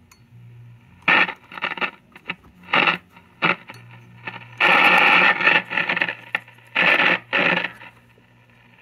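A 1954 CBS model 5165 five-tube radio playing through its speaker over a steady low hum, its sound cutting in and out in irregular bursts. The restorer suspects a bad contact somewhere in the set.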